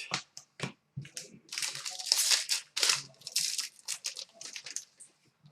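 Crinkling and rustling of foil trading-card pack wrappers and cards being handled, in a string of short bursts that are busiest about halfway through.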